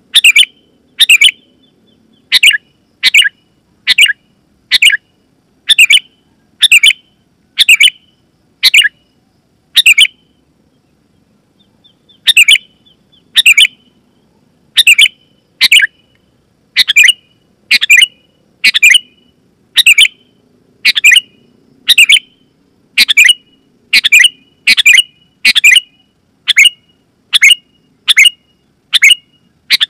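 Sooty-headed bulbul (kutilang) calling: short, loud, clear notes repeated about once a second, with a pause of about two seconds a third of the way in and the notes coming faster later on.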